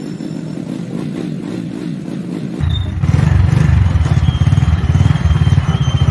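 Motorcycle engine running with its rear tyre driving an AC alternator's coupling by friction, a rapid low pulsing beat. About two and a half seconds in the engine is opened up and gets much louder, and a faint high whine joins soon after.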